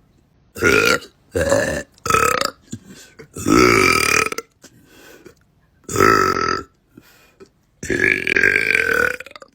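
A young woman belching six times in a row: loud, pitched burps, three short ones, then a longer one of about a second, a short one, and a last drawn-out burp of about a second and a half.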